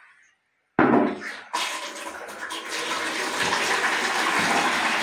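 Water running: it cuts in suddenly about a second in with a louder splash that fades, then goes on as a steady rush.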